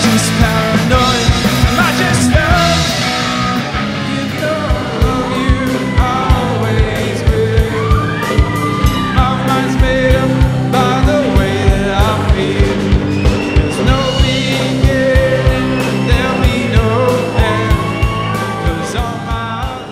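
Live rock cover band playing: drum kit keeping a steady driving beat under electric guitars, bass and a lead singer, dropping away in level near the end.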